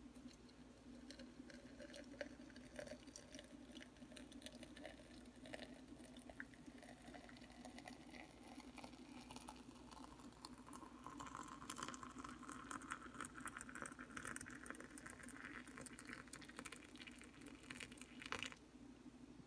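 Hot water poured in a thin stream from a kettle into a ceramic mug through a stainless-steel infuser basket of loose tea leaves: a faint trickling and pattering whose pitch rises steadily as the mug fills. The pour stops near the end.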